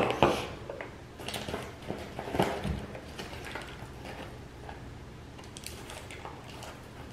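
A small hard container knocked down on a tabletop at the start, then a fabric makeup pouch handled and its zipper worked: light rustles and small clicks that grow fainter after about three seconds.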